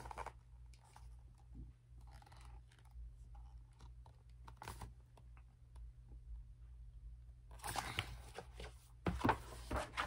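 Quiet handling of a picture book held up and lowered: scattered soft clicks and paper rustles, with a louder rustle of about a second near the eight-second mark, over a low steady hum.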